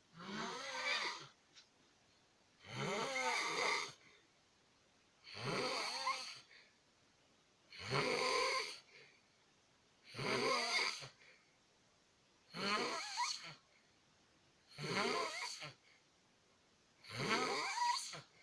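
Steady, rhythmic snoring: eight snores, each about a second long, coming roughly every two and a half seconds.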